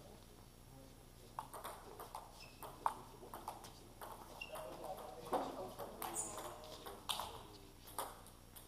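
Table tennis rally: a celluloid ball clicking off bats and the table in quick, uneven strikes, with short gaps between bursts of play.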